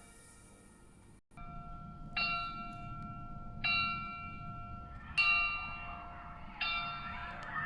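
Background music: a fading sustained passage breaks off about a second in, then slow struck bell-like chime notes ring out about every second and a half.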